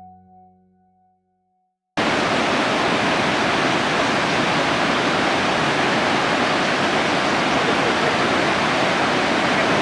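Soft background music fading out, a moment of silence, then about two seconds in a river rushing steadily, a loud, even sound of flowing water that cuts in suddenly.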